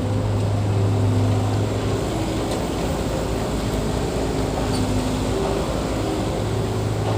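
Diesel engine of heavy earthmoving machinery running steadily: a strong low hum with higher tones that come and go.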